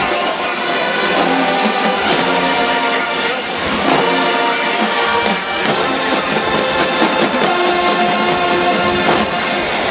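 Marching band brass section playing loud sustained chords with drum hits.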